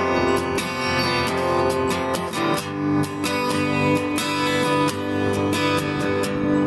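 A guitar played solo: a steady stream of picked notes and chords with no singing.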